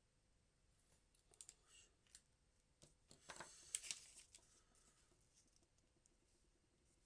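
A printed paper sheet rustling and crinkling as it is picked up and handled: a few short crisp rustles, with the loudest handling about halfway through.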